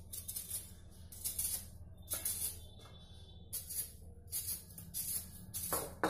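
Vegetable peeler scraping the skin off a raw beetroot: a run of short, rasping strokes, roughly one or two a second, with brief pauses between them.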